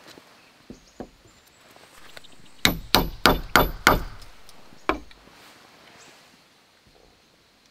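A tool striking wood in sharp blows: five in quick succession, about three a second, then a sixth about a second later.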